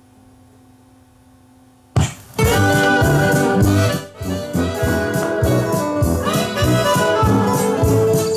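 Vinyl record playing on a Technics SL5200 direct-drive turntable, heard through the amplifier during a test play. Music starts about two seconds in, once the stylus is cued down onto the record. Before that there is only a faint steady hum.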